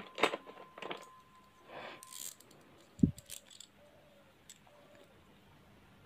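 Small metal hand tools worked on a phone charging port: tweezers and a blade clicking and scraping against the little metal part, a run of short clicks and scrapes over the first couple of seconds, then one sharp knock about three seconds in and a few light clicks after.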